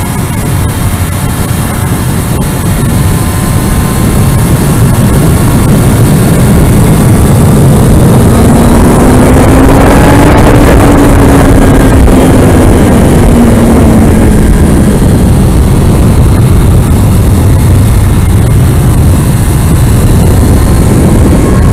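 Kawasaki Ninja ZX-6R's inline-four engine pulling at speed on a racetrack, under a heavy rush of wind over the microphone. Near the middle the engine note climbs and then falls away again.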